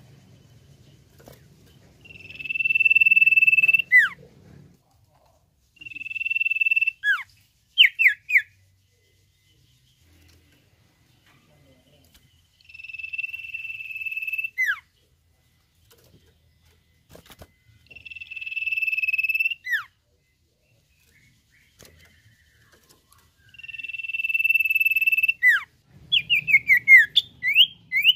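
Common iora whistling: a long, steady, high whistle held for one to two seconds that ends in a quick downward slur, given five times with pauses between. Near the end it breaks into a quick run of short falling notes.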